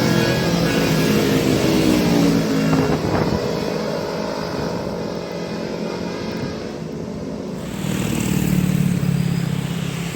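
Road traffic passing close by: motor vehicle and motorcycle engines running, easing off and then growing louder again about eight seconds in as another vehicle comes past.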